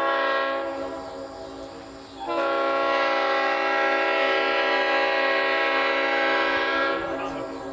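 Leslie five-chime locomotive air horn sounding its chord: a blast that dies away in the first second, then after a brief gap a long, steady blast of about four and a half seconds that cuts off abruptly.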